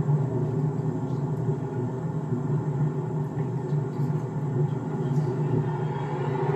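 Steady low rumble of a car driving: even road and engine noise as heard from inside the moving car.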